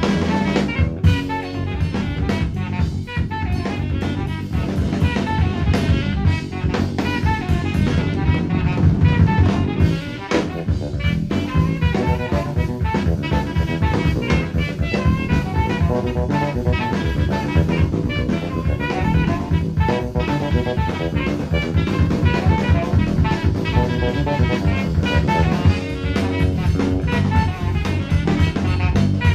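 Live jazz-fusion trio playing: a busy, rapid drum-kit pattern with rimshots over a steady electric bass line from a Fender Jazz bass.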